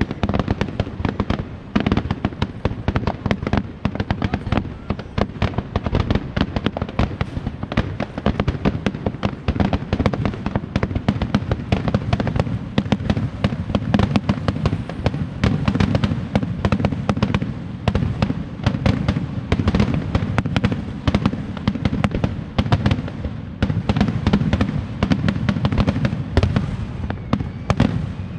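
Fireworks display at its height: a dense, unbroken barrage of booming bursts and crackles, many a second.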